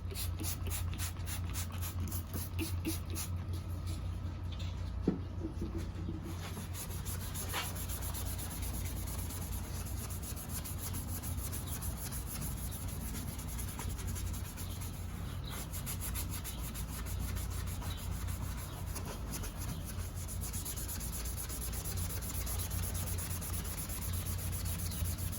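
Steel wool scrubbing the ATV's plastic body panels in fast back-and-forth strokes, a steady scratchy rubbing. This is the first stage of restoring the faded plastics.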